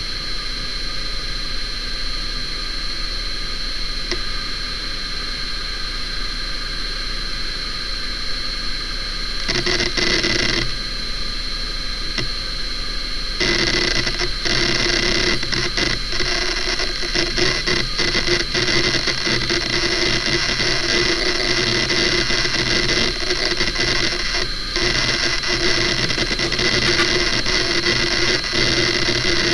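Hitachi Ultrastar DK32EJ-36NC hard drive spinning with a steady high whine while its heads seek and read as Windows loads. The seek chatter comes in a short spell about ten seconds in, then turns busy and continuous from about thirteen seconds on.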